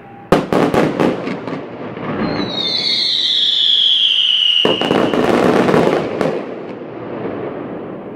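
Fireworks display: a quick run of sharp cracks, then a whistle falling in pitch for about two seconds. It is followed just past the middle by a dense burst of crackling reports that fades away towards the end.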